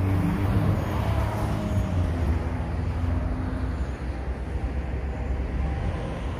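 Steady outdoor traffic noise: a low, even rumble with a faint engine hum in it.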